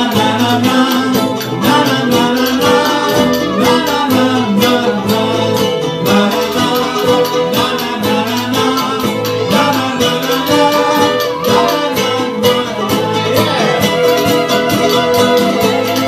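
Live band playing upbeat folk-style music, with strummed ukulele and banjo and a voice singing over a steady beat.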